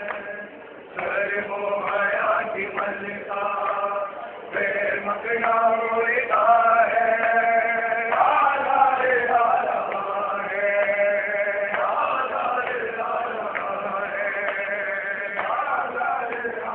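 Male voices chanting a noha, a Shia mourning lament, sung in phrases without instruments.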